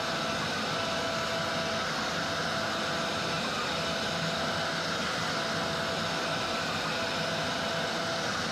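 Genmitsu 4030 CNC router's spindle running steadily with its end mill cutting a pocket in maple plywood, over the rush of a vacuum hose drawing off the chips.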